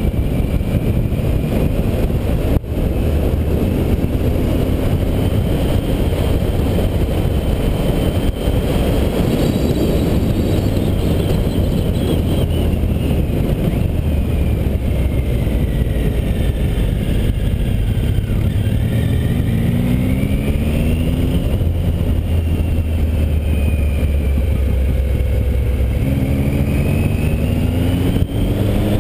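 Triumph Tiger 800 XC's three-cylinder engine running under way, with a steady rush of wind and road noise. The engine pitch rises twice, about two-thirds of the way through and again near the end, as it accelerates.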